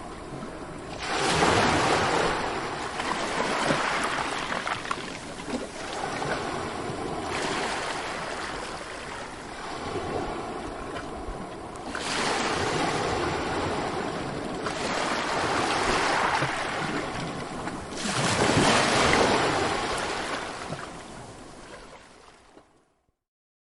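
Ocean waves breaking and washing in, swelling into a loud surge every few seconds over a steady hiss of surf, then fading out near the end.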